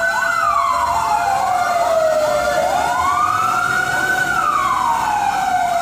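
Fire engine siren wailing in a slow rise and fall, twice, over a steady tone and a faster warble.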